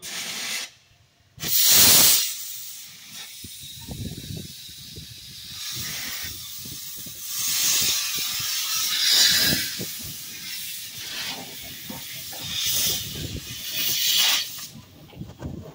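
1937 Porter 0-4-0T steam locomotive on the move, its open cylinder cocks blowing steam in repeated hissing blasts over the chuff of its exhaust. The loudest blast comes about a second and a half in.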